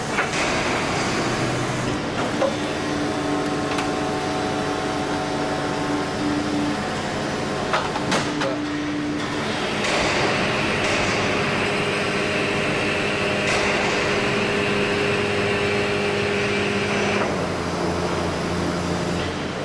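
Injection molding machine cycling a plastic bottle crate mold: a steady machine hum with several whining tones, a few sharp clanks as the mold moves, and a hiss that starts about halfway through and stops near the end.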